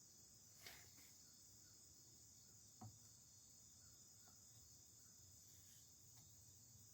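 Near silence: faint steady high-pitched chirring of crickets, with two faint small knocks, one near the start and one about three seconds in.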